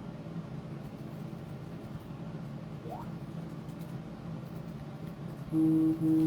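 Steady low electrical hum, then near the end two short, loud electronic beeps of one steady pitch, each about half a second long.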